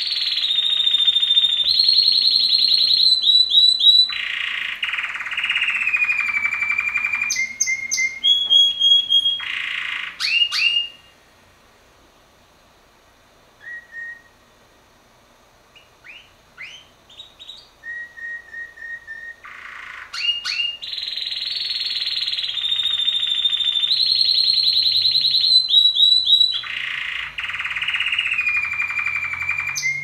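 Male domestic canary singing: long rapid trills and rolls, each phrase held at a different pitch, in loud sections. About a third of the way in the song breaks off into a quieter run of short, separate chirps, and the full trilling song resumes about two-thirds through.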